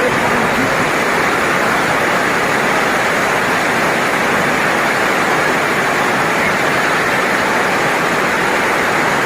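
Heavy rain pouring down as a dense, steady hiss.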